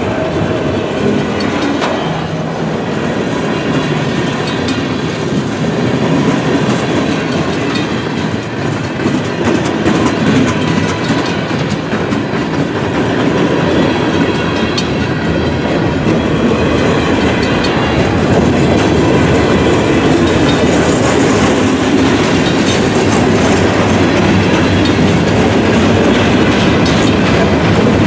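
Freight cars of a long mixed freight train rolling past at speed as the train accelerates, the wheels clacking over the rail joints. It is loud and steady, and grows a little louder over the second half.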